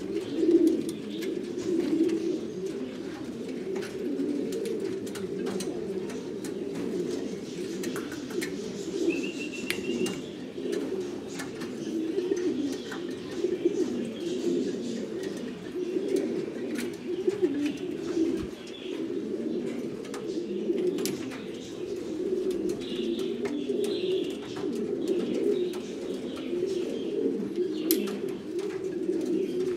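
Buchón Gaditano pouter pigeons cooing, a steady low cooing chorus without a break. There is a brief high chirp about nine seconds in and a few small clicks.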